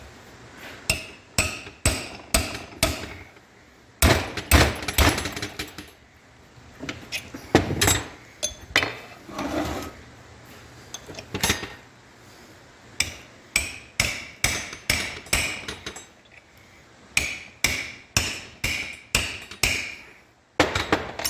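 A hand hammer striking metal clutch parts: runs of sharp blows in clusters, some ringing, with short pauses between the runs.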